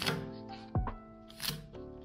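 Background music with a soft beat, over a knife slicing through spring onions on a cutting board: a crisp cut at the start and another about one and a half seconds in.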